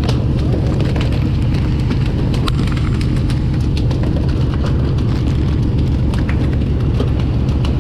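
Fishing boat's engine running with a steady low rumble under the rush of sea and wind, with frequent sharp taps and knocks.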